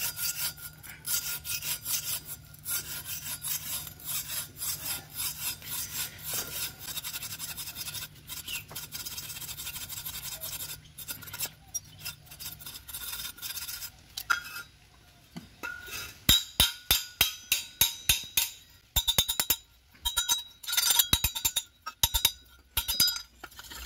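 Metal scraping on metal as the frayed end of a steel cable scours carbon from inside the perforated baffle tube of a two-stroke three-wheeler's silencer. It is a fast, continuous rasping at first. After a brief pause come louder, separate scraping strokes, several a second.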